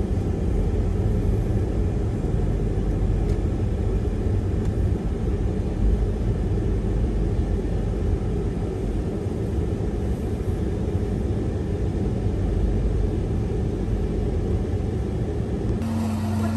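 Steady outdoor rumble of road traffic, with no distinct passes standing out. Near the end it gives way abruptly to a steady low hum indoors.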